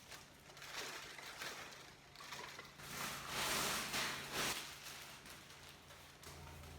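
Rustling and crinkling of packaging in irregular swells as the vacuum cleaner's main body is handled and pulled out of its box.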